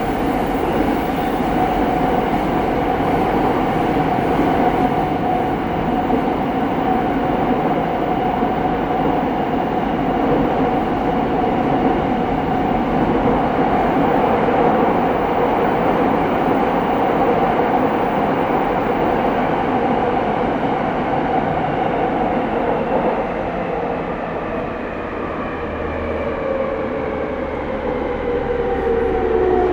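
Tokyo Waterfront Area Rapid Transit 70-000 series electric train running, heard on board: steady rumble of wheels and rails with a held traction motor whine. Over the last few seconds the whine falls in pitch as the train begins to slow.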